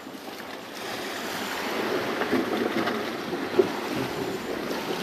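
Small sea waves washing and swirling against rock ledges at the water's edge, a steady hiss of moving water.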